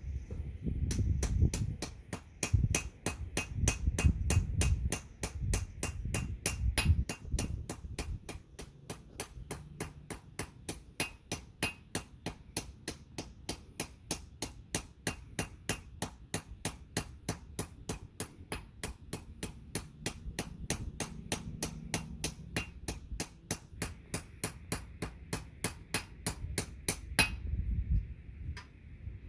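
A blacksmith's hammer striking steel on an anvil, forging a dagger blade. The blows come in a steady rhythm of about three a second, each with a metallic ring, and stop suddenly near the end. A low rumble runs under the first several seconds.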